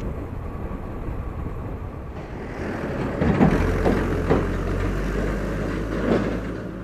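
Motor vehicle engine running, a low steady rumble that grows louder about three seconds in.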